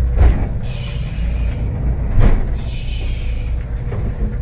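Steady low drone of the Sargo 31's engine heard from inside the wheelhouse while under way in rough water, with two dull thumps, one just after the start and one about two seconds in, and two bursts of hiss lasting about a second each.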